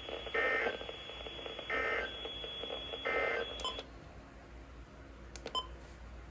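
NOAA Weather Radio broadcast sending three short SAME digital data bursts, the end-of-message code, each a brief buzzy screech about 1.4 s apart over a steady high whine. The whine cuts off just after the third burst, followed by a couple of clicks.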